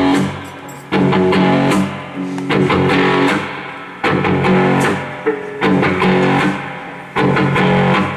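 Instrumental intro of a rock song played live: strummed guitar chords struck about every second and a half, each ringing and fading before the next.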